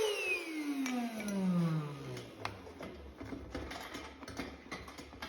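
Ash vacuum cleaner's motor winding down after being switched off, its whine falling steadily in pitch over about two seconds. Scattered light clicks and knocks follow.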